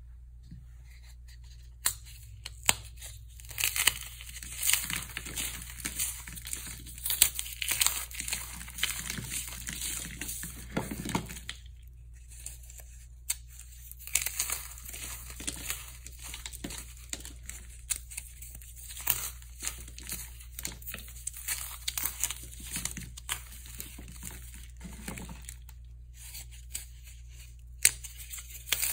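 Dry floral foam shapes coated in hardened comet and cornstarch paste crunching and crumbling as they are snapped and squeezed apart by hand: irregular crisp crackling, with a brief pause about twelve seconds in.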